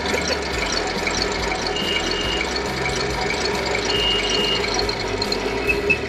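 Radio-controlled model tank driving, with a steady mechanical running noise and a short high whine that comes in twice, about two seconds apart.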